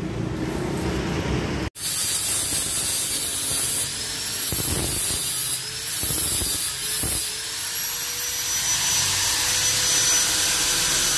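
Handheld power polisher buffing a stainless steel exhaust mid pipe: a steady high whine over a hissing rub of the pad against the metal, in the first polishing pass.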